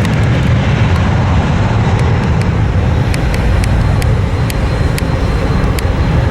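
Steady, loud jet roar of an American Airlines Boeing 757 at takeoff power during its takeoff roll.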